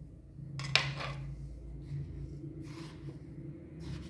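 Handling noises around a wooden mortar: one sharp click about a second in and two fainter knocks near the end, over a steady low hum.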